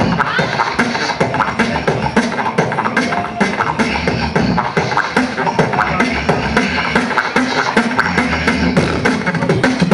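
Human beatboxer performing live into a handheld microphone over a stage PA: a fast, driving rhythm of mouth-made drum hits over a deep bass tone.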